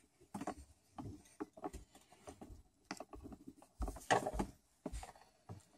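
Small plastic toy figures being handled and moved about in a clear plastic tub of water: a scatter of light, irregular knocks and clicks against the plastic, the loudest cluster about four seconds in.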